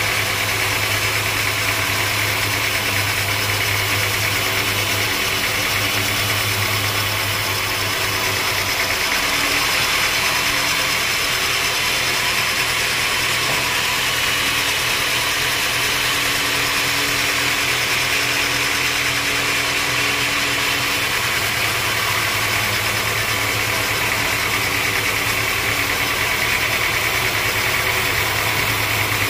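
Band sawmill running steadily while its blade saws a mahogany log lengthwise: a constant mechanical drone with a low hum under a hissing cutting noise, even in loudness throughout.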